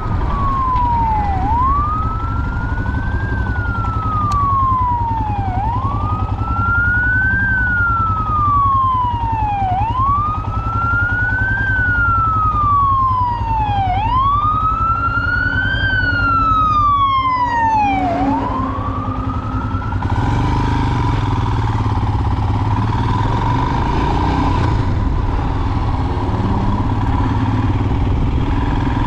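Emergency vehicle siren in a slow wail, rising and falling about every four seconds for five cycles, then stopping about two-thirds of the way in. A fainter, higher second siren overlaps it in the middle, over a steady low engine rumble.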